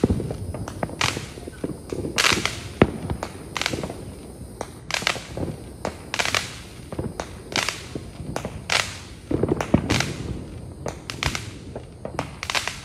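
Consumer fireworks and firecrackers going off around the neighbourhood: an irregular string of sharp bangs and pops, sometimes several in quick succession.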